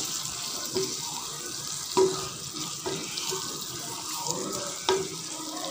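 Chicken pieces with cubed onion and capsicum sizzling in a frying pan while a spatula stirs them. A steady frying hiss, with a few short knocks and scrapes of the spatula against the pan.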